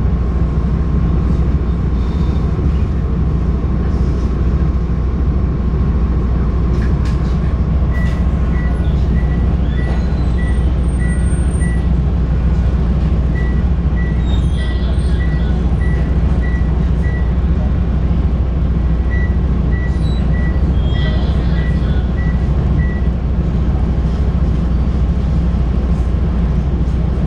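Articulated city bus idling at a standstill, a steady low engine rumble heard from inside the cabin. Over it come three runs of short, evenly spaced high beeps, about two to three a second.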